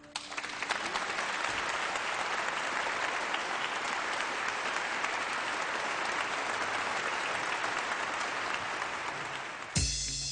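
Audience applauding, a dense, steady clapping that lasts about ten seconds and is cut off abruptly near the end.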